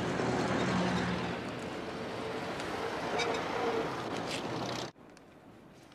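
Vintage taxi's engine running at the kerb, a steady low hum under general street noise, which cuts off abruptly near the end.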